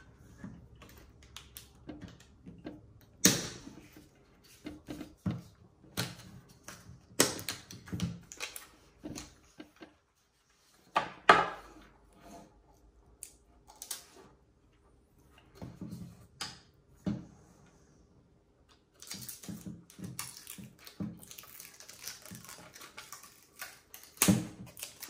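Rechargeable AA batteries being pushed into the plastic battery tray of a Victure HC300 trail camera, and the camera's plastic case being handled and closed: irregular clicks and clacks with a few sharper snaps, the loudest about eleven seconds in.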